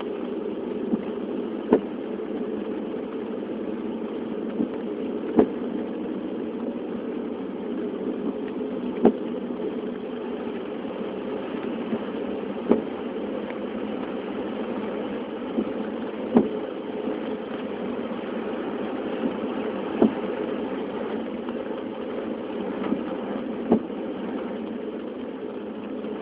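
A steady low drone with a sharp click repeating about every three and a half seconds.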